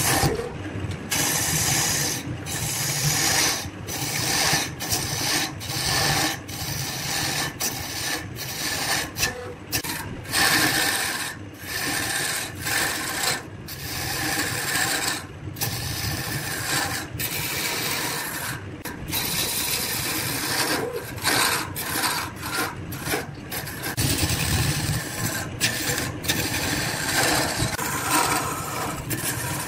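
Hand-held turning chisel cutting a spinning wooden blank on a wood lathe: a continuous scraping hiss of the cut, broken by many brief gaps as the tool lifts off the wood.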